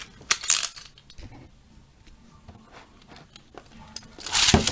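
Plastic Beyblade spinning top and launcher being handled and fitted together: a few sharp clicks and rattles about half a second in, scattered small ticks, then a louder scraping rustle lasting about half a second near the end.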